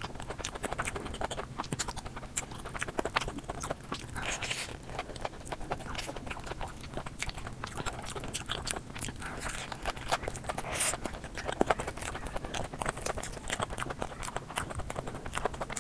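Close-miked eating of crumb-coated fried balls with a stretchy cheese filling: steady biting and chewing, full of small crisp crunches and mouth clicks.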